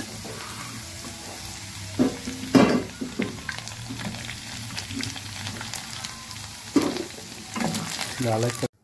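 Potato cubes sizzling in hot oil in a nonstick kadai while a steel spoon scoops them out, scraping and clinking against the pan. The louder scrapes come about two seconds in and again near the end.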